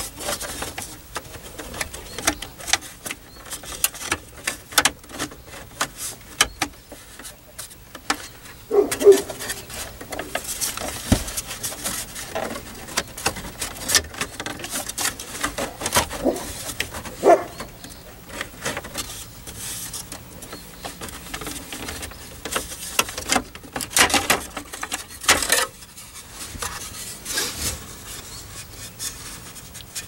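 Hard plastic lower steering-column cover of a 1996 Chevrolet Suburban being worked loose by hand: irregular clicks, knocks and plastic rubbing on plastic as its hooks and lip come free, with a few louder snaps along the way.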